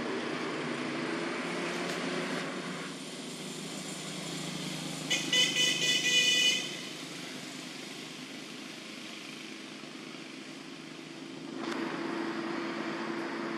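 A vehicle horn beeping in about six quick short honks for a second and a half, over steady outdoor background noise.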